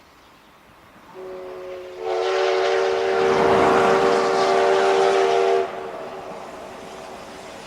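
Steam whistle of the D51-class steam locomotive D51 200 blowing one long blast. It opens softly about a second in, sounds full and steady for about three and a half seconds, then cuts off.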